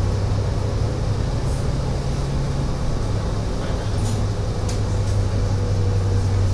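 Interior drone of a moving Mercedes-Benz Citaro city bus: its diesel engine running steadily under road and tyre rumble, with a low hum throughout. A few brief rattles from the cabin about four to five seconds in.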